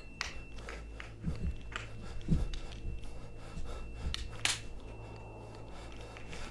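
Quiet footsteps, rustling and small handling clicks from someone creeping through a small room with a shotgun. There are soft low thumps about one and two seconds in and a sharper click about four and a half seconds in.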